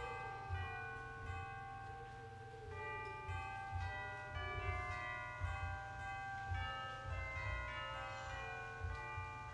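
Church bells ringing: many notes of different pitch struck one after another and left to ring on over each other, with a low, uneven thudding underneath.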